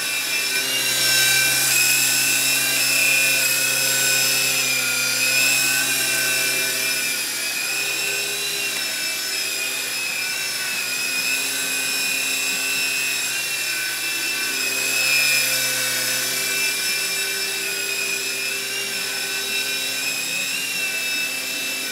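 T642C coaxial RC toy helicopter in flight: its small electric motors whine and its twin rotors buzz steadily. The pitch wavers slightly as the throttle changes.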